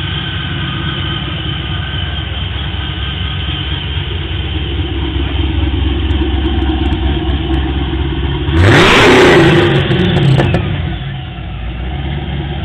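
Hot-rodded muscle car engine idling steadily, then revved hard once near the end: the pitch sweeps up and falls back over about two seconds before it settles back to idle.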